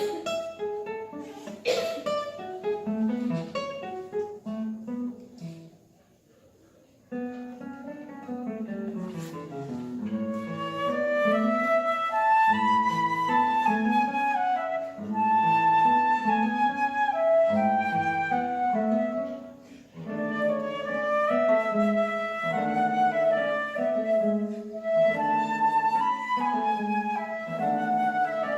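Acoustic guitar and flute playing a slow serenade together: plucked guitar chords under a sustained flute melody. The music almost stops for a moment about six seconds in, then resumes and grows fuller.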